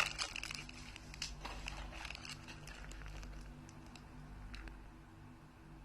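Scattered small clicks, crackles and crinkles of McDonald's food and its paper packaging being handled, busiest in the first few seconds, over a steady low electrical hum.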